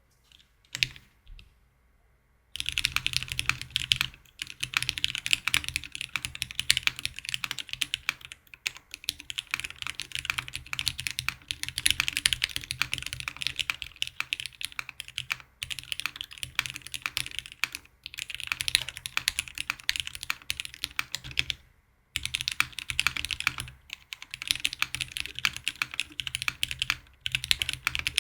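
Typing on a Lynx 65 mechanical keyboard with lubed Cherry Hyperglide Black linear switches, a polycarbonate plate and GMK Muted doubleshot ABS keycaps. A couple of single key presses, then a fast, continuous run of keystrokes from about two seconds in, broken by a few short pauses.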